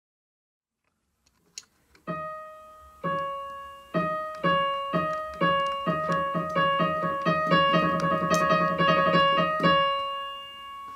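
Piano being played after a moment of silence, with a small click just before the first note. Notes and chords are struck about once a second at first, then more quickly, and ring out and fade near the end.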